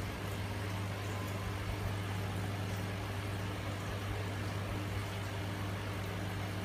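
Aquarium water pump running with a steady low hum over an even hiss.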